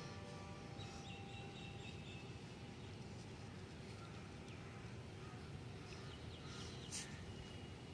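Faint steady background noise with a bird chirping high: a warbling trill about a second in, then a few short chirps and a faint click near the end.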